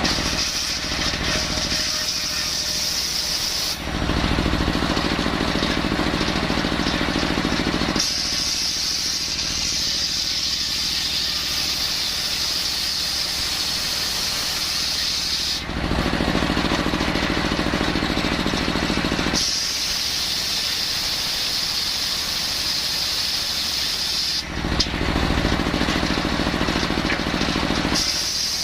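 Engine-driven circular saw cutting coconut-palm timber. A high-pitched squealing whine while the blade is in the wood alternates with stretches where the lower engine sound comes forward: roughly four cuts, with breaks about 4, 16 and 25 seconds in.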